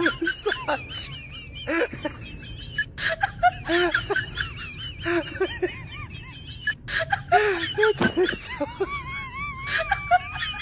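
Laughing and giggling in short bursts over high, warbling chirps, with scattered sharp clicks.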